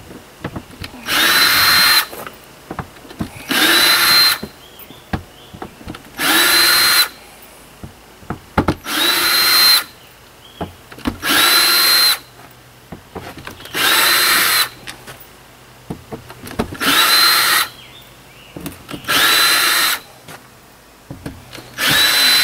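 Ryobi cordless drill backing screws out of a camper's window frame: nine short runs of about a second each, a couple of seconds apart, the motor whining up to a steady pitch each time. Small clicks and taps come between the runs.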